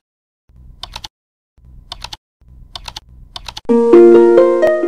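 Keyboard-typing sound effect in short bursts of clicks, about one burst a second, as title text types itself out. About three-quarters of the way in, a loud bright chime chord rings out with its notes coming in one after another, then fades.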